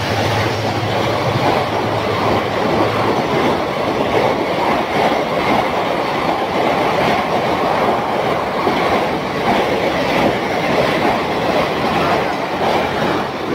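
Coaches of the Indrayani Express passenger train running through a station at speed without stopping: a steady loud rush of wheels on rail. A low hum fades away over the first few seconds.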